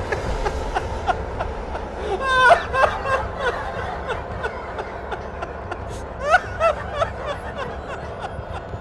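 A baby's short, high-pitched laughs and squeals, a few scattered through, the loudest about two and a half seconds in and another cluster around six to seven seconds in.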